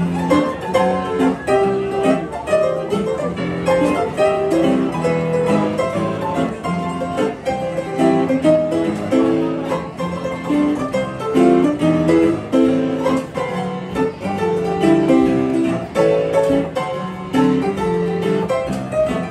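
An upright piano playing a tune, with stacked chord notes changing under a moving melody.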